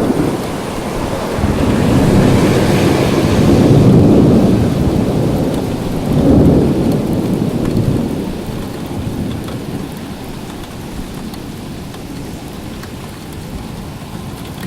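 Thunder rolling over steady rain. The low rumble swells twice, most strongly about six seconds in, then dies away, leaving only the rain.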